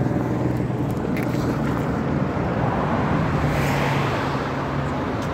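Steady engine hum and road noise of a moving road vehicle. The engine note shifts slightly higher about three seconds in.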